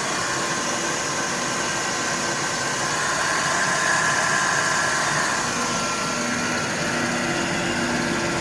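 Alup Combi GE 7.5 rotary screw air compressor running loaded, a steady machine hum with a high whine, building pressure in its air receiver toward its 10-bar cut-out.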